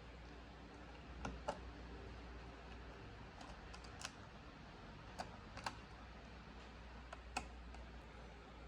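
About six faint, sharp clicks and taps at irregular intervals, like computer parts being handled and fitted, over a steady low hum.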